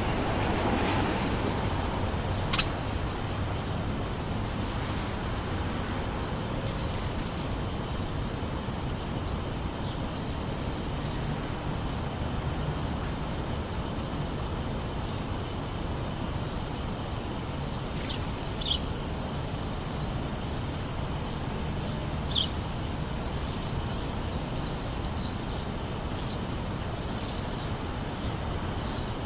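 Small birds giving short, high chirps every few seconds over a steady low outdoor rumble, with a thin, steady high-pitched tone underneath.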